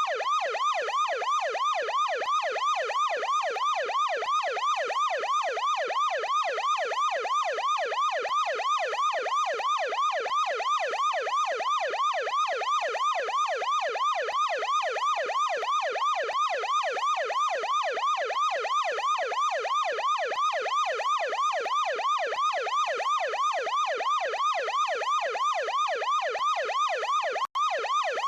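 Ambulance yelp siren: a fast, evenly repeating wail that sweeps up and down in pitch about three to four times a second, with a momentary dropout near the end.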